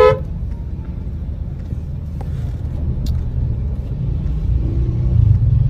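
Steady low rumble of a car's engine and road noise heard from inside the cabin while driving slowly through traffic. There is a brief pitched sound right at the start.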